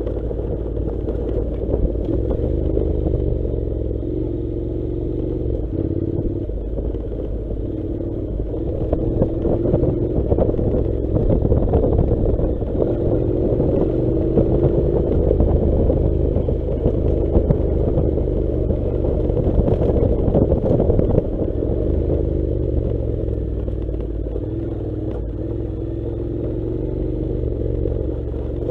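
Honda NC700's parallel-twin engine running under way, its pitch climbing in short stretches with the throttle, over a steady clatter of knocks from riding a rough dirt track. It is loudest in the middle stretch.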